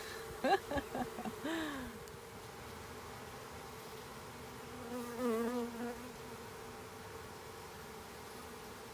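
Honey bee swarm buzzing, a steady even hum. Brief voice sounds break in during the first two seconds and again about five seconds in.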